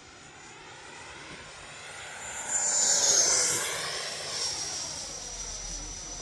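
Freewing F-16 90mm electric ducted fan jet making a fly-by. The high fan whine and rushing air build to a peak about three seconds in, the whine drops in pitch as the jet passes, then it fades away.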